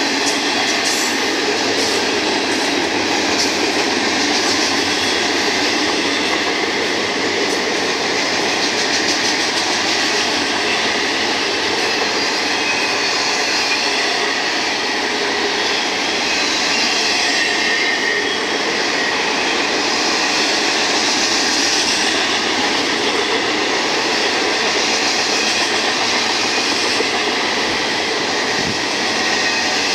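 Double-stack intermodal container cars rolling steadily past, wheels running on the rails.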